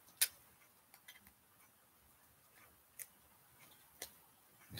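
A few faint, isolated clicks and taps, about five in all, from duct-taped paddle pieces being handled and lined up by hand.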